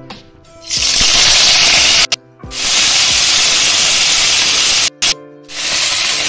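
Washed, parboiled cauliflower florets sizzling loudly in hot oil in a steel kadai, a dense spitting hiss as the wet florets hit the oil. The sizzle starts just under a second in and cuts off abruptly twice, about two and five seconds in, each time resuming.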